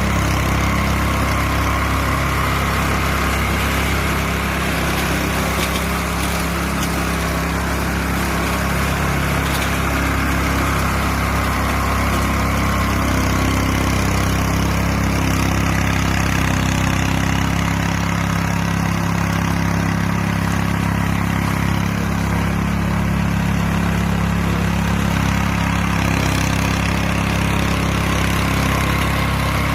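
Small engine of a homemade radio-controlled mower running steadily at an even speed, with no revving.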